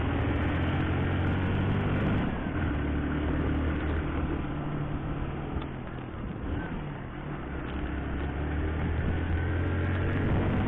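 Motorcycle engine running along at road speed under steady road and wind noise, easing off about six seconds in as the bike takes a bend and then pulling again.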